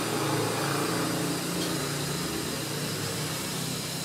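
Steady static hiss from a Sony LED TV's speakers, the white noise that goes with its snowy no-signal screen. It is a sign that the set now powers up and runs instead of stopping at the 6-blink standby fault.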